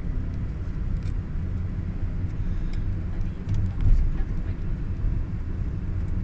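Road and engine noise inside a moving car: a steady low rumble, briefly louder about four seconds in.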